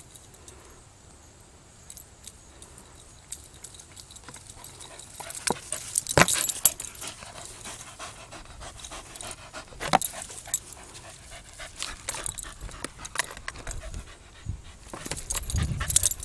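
Cattle dog panting close to the microphone after a disc retrieve, starting about five seconds in, with two sharp knocks and handling noise.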